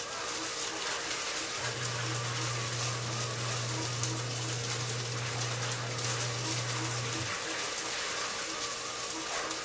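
Electric fan running with a steady rain-like rushing hiss. A low hum comes in under two seconds in and cuts off about seven seconds in.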